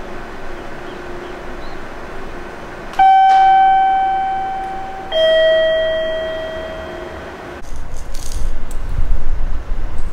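Two-note descending electronic chime, a high note and then a lower one about two seconds later, each ringing and fading slowly over a steady background hum at the ticket gates. About three-quarters of the way through, wind begins buffeting the microphone.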